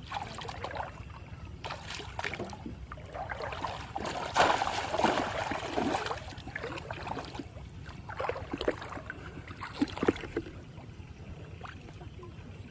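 Water sloshing and splashing in irregular bursts, loudest about four to six seconds in, over a steady low rumble.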